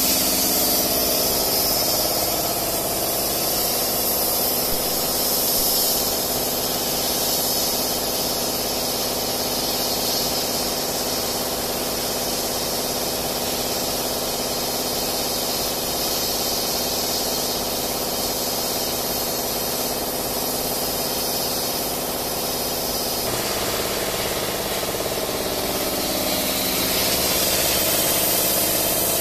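150 W CO2 laser cutting machine running while it cuts a wooden sheet: a steady machine hum with a hiss over it. The hum's tone changes about 23 seconds in, when some of its notes drop away.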